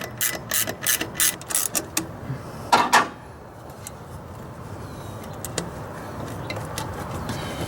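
Ratcheting wrench clicking quickly and evenly, about four to five clicks a second, as it loosens a hose clamp on an intake boot. The clicking stops about two seconds in, and a sharp double knock follows about a second later.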